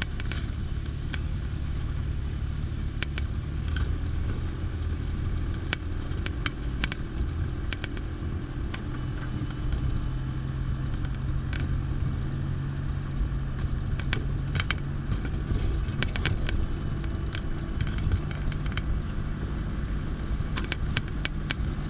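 Car driving along a rough, bouncy road: a steady low engine and road rumble with frequent sharp clicks and rattles from the jolting.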